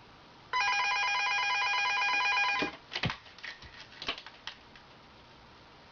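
Wall-mounted landline telephone ringing with an electronic trill for about two seconds, then stopping. A few short clicks and knocks follow as a cat paws at the phone.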